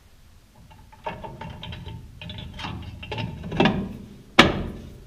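Aluminium engine adapter plate scraping and clinking against its steel studs and the VW transaxle bellhousing as it is slid into place. There is one sharp metallic click about four seconds in.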